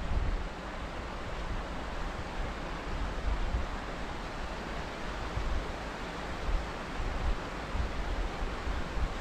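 Wind on the microphone of a camera riding a chairlift: a steady hiss with uneven low buffeting rumbles.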